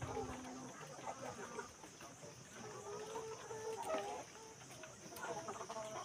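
A flock of chickens clucking, with overlapping short calls.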